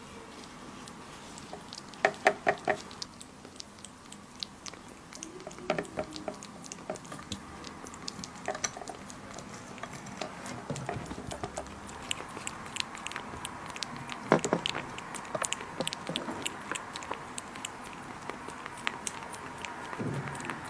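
Kitten licking runny raw egg yolk off a ceramic dish: a long run of small wet tongue clicks and lapping sounds. A quick cluster of louder clicks comes about two seconds in, and a single loud one about fourteen seconds in.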